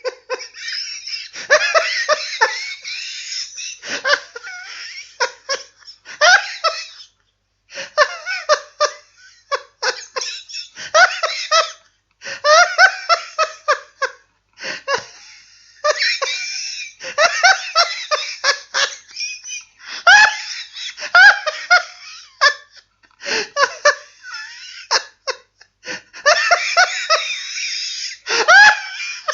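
A man laughing heartily in repeated bouts of quick bursts, broken now and then by short pauses.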